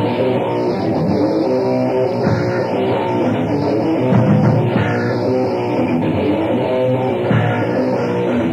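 Loud rock music from a grindcore/hardcore band's tape: electric guitar and bass guitar playing a steady riff.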